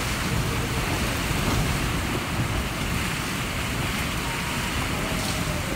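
Steady noise of a seaside storm: heavy rain and wind, with surf from the rough sea.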